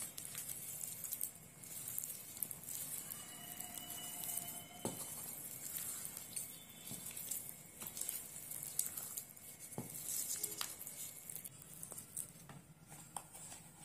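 Wooden spatula stirring thick fruit cake batter with soaked fruit and nuts in a plastic bowl: soft, irregular scraping and tapping of the spatula against the bowl and through the mix.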